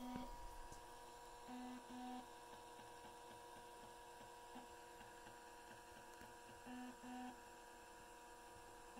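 Sony 2x USB external floppy disk drive reading a disk: faint short buzzes from the head stepping, one at the start, a pair about a second and a half in and another pair about seven seconds in, over a faint steady hum. The drive is being accessed as it loads.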